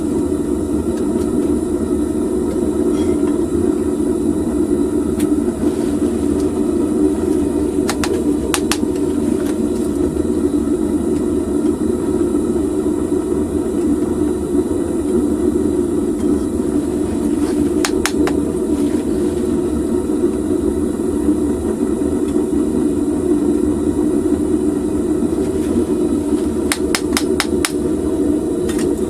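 Homemade propane furnace burner running with a steady gas roar. A few light metallic clicks, a cluster of them near the end.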